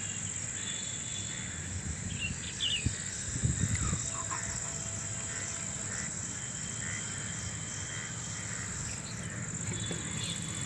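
Steady high-pitched insect chorus, like crickets, with a few short bird chirps over it and a low rumble underneath, plus a few brief louder low knocks about three to four seconds in.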